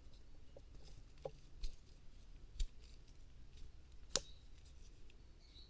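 Faint clicks and light taps of a steel multitool being handled, with one sharper click about four seconds in.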